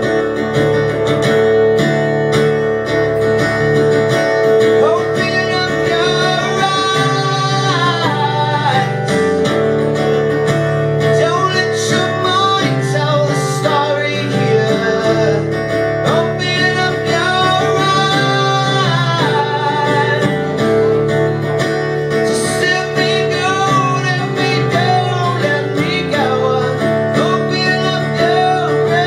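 Live solo song: a strummed guitar, with a man's singing coming in about five seconds in, heard through the PA.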